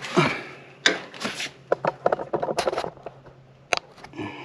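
Loose metal bumper spacer plates clinking and clicking against each other as they are handled, with a quick rattling run of clicks near the middle.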